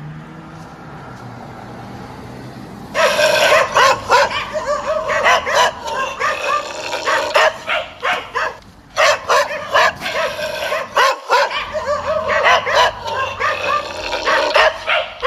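A dog barking and yipping in a quick, loud run that starts about three seconds in, breaks off briefly before the ninth second, then resumes.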